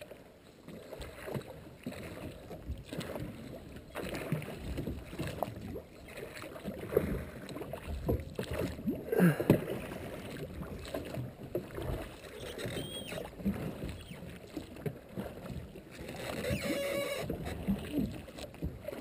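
Water sloshing and splashing around a drift boat as the oars work, with a hooked trout splashing at the surface beside the boat; irregular, with scattered knocks.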